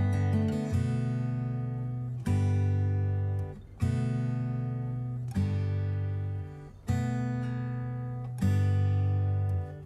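Background music on acoustic guitar: quick picked notes at first, then strummed chords, each left to ring and fade, a new one about every one and a half seconds.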